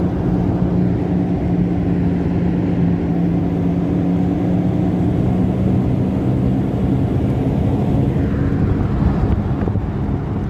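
Worn left rear wheel bearing of a Toyota RAV4 droning inside the moving car: a steady low hum over tyre and road noise, its pitch shifting lower about six seconds in.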